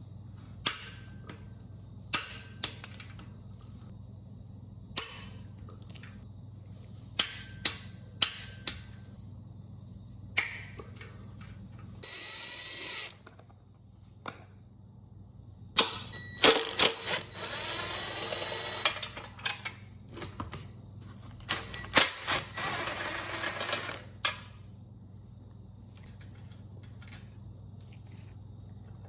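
Mechanic's hand tools at work on the engine's bell housing bolts: scattered metal clicks and knocks, then bolts being run in, with two louder stretches of rapid tool noise a few seconds long about halfway through. A steady low hum runs underneath.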